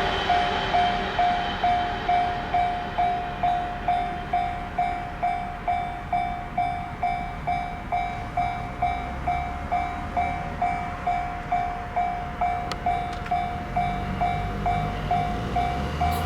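Japanese railway level-crossing alarm ringing its steady electronic bell tone about twice a second. Near the end a low rumble builds as the JR 115-series electric train draws near.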